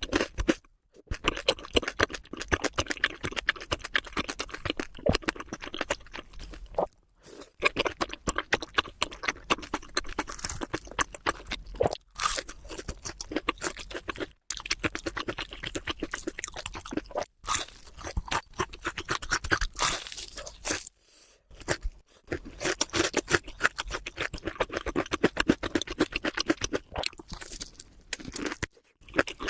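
Close-miked chewing of crunchy food: dense, rapid crunching and crackling, broken now and then by short silences.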